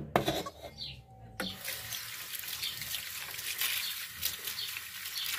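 Kitchen tap running into a stainless-steel bowl of oranges in the sink as the fruit is washed by hand, the water starting about a second and a half in. A couple of sharp knocks come just before it.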